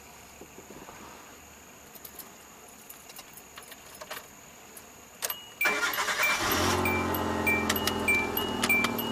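1997 Hyundai Accent engine cranked and started a little over five seconds in, then settling into a steady idle, with a repeating two-note electronic beep and light ticking over it.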